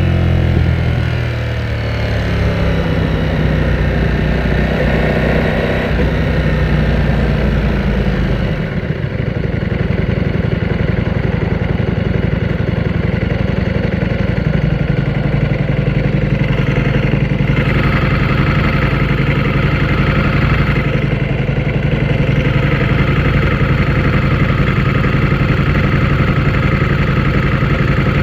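Ducati Panigale V4S's V4 engine, its revs falling over the first couple of seconds and then running at low revs. From about halfway it settles into a steady idle.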